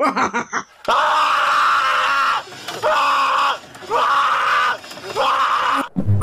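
A scream repeated four times in a row, each about a second long and rising in pitch at its start, after a brief choppy stutter at the very beginning.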